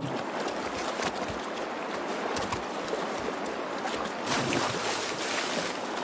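Shallow stream water rushing steadily over rocks, with a few brief sharper splashes as a bear cub lunges at salmon in the water.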